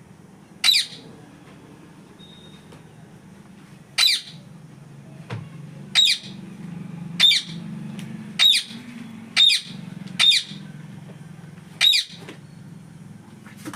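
Ring-necked parakeet giving eight short, sharp calls, one every one to two seconds.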